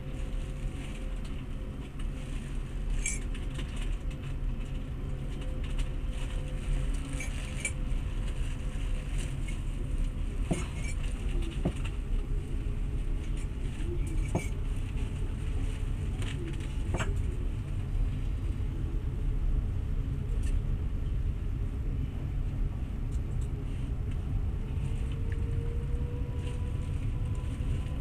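Passenger train running at speed, heard from inside the carriage: a steady low rumble of wheels on rails, with occasional sharp clicks and rattles from the car.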